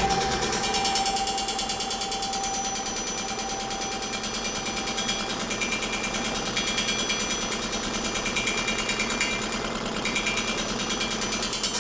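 1950s Brother treadle sewing machine running, a rapid, even mechanical clatter. A steady tone fades out over the first few seconds.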